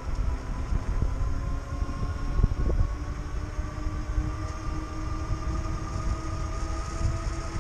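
Electric bike motor whining under power, its pitch rising slowly as the bike picks up speed, over a low rumble of wind on the microphone and tyres on asphalt, with a brief thump about two and a half seconds in.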